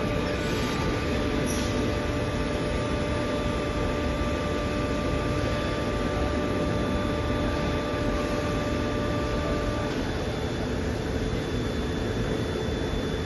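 Soraluce FP8000 mobile-column CNC milling machine running: a steady mechanical hum with several whining drive tones, some of which stop about ten seconds in.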